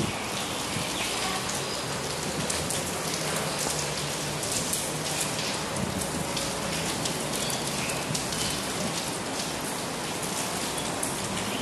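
Steady rain: an even hiss with many small scattered ticks.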